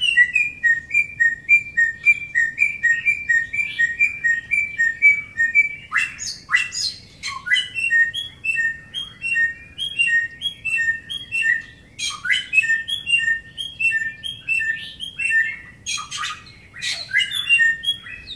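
Bare-throated whistler (samyong) singing: long runs of quick whistled notes, alternating a higher and a lower pitch about twice a second. These are broken by loud whistles that fall steeply in pitch, in clusters about six, twelve and sixteen seconds in.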